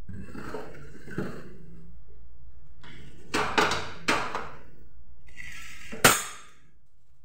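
Kitchen handling at a gas stove: a rustle and clatter at the start, then a quick run of sharp clicks from a hand-held gas lighter at the burner under the kadhai about three seconds in. Near the end comes a single sharp knock as it is set down.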